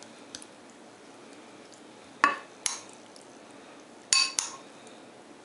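Metal spoon clinking against a plate and a bowl while spreading a herb marinade on tomato slices. A few light taps, then two sharp clinks about two seconds in and a ringing double clink about four seconds in.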